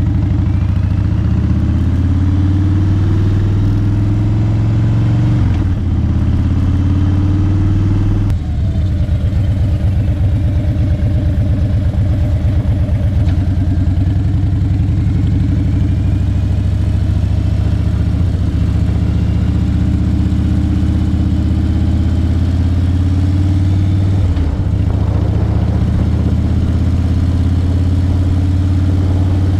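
Harley-Davidson Fat Bob's V-twin engine running under way on a ride, a steady deep exhaust note. The pitch shifts and breaks briefly around 6 and 8 seconds in and again near the end, as it is shifted or throttled.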